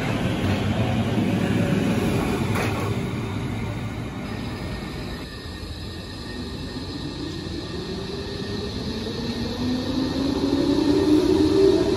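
Berlin S-Bahn electric train running past, its rumble fading over the first few seconds, with one sharp clack about two and a half seconds in. Then a second S-Bahn train's traction motors whine, rising in pitch and growing louder as it gathers speed past the platform.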